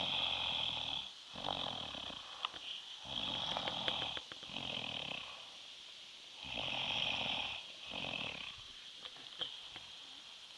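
Snoring in sleep: three breaths a few seconds apart, each snore in two parts, growing weaker near the end.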